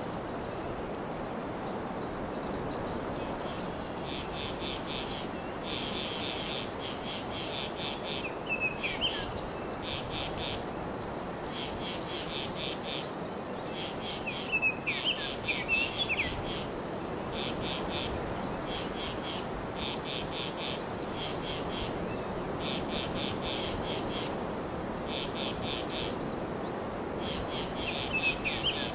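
Insects chirping in rhythmic groups of fast, high pulses with short gaps between them, over a steady high hum. A bird's short downward chirps come in a few times, against a steady background hiss.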